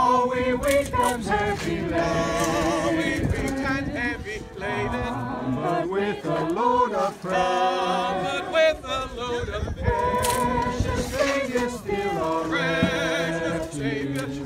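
A group of voices singing a hymn a cappella, with long held notes and vibrato.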